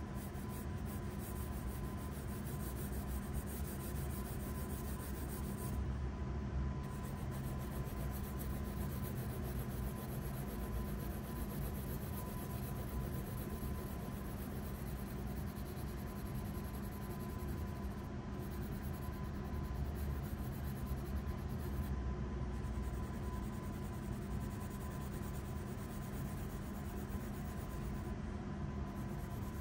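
Graphite pencil scratching across paper while shading a sketch, over a steady hum.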